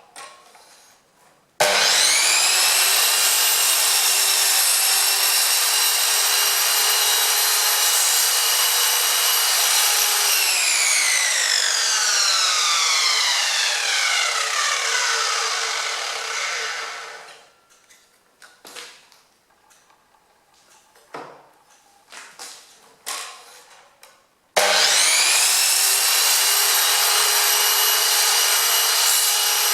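Einhell TC-SM2531/2 U sliding mitre saw starting up and running with a high steady whine while its blade cuts through wood. The saw is switched off about ten seconds in and the blade spins down over several seconds, its whine falling in pitch. A few knocks and clicks follow as the saw is handled, then it starts again near the end.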